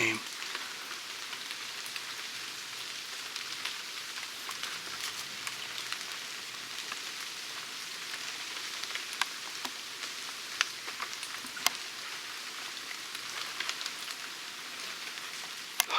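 Steady rain falling, an even hiss with scattered single drops ticking sharply, a few of them louder near the middle.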